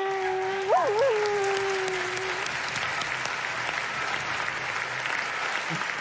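A man's vocal imitation of a melancholy dog howling: one long, steady held note that wavers twice about a second in and stops about two and a half seconds in. Audience applause swells under it and carries on after it.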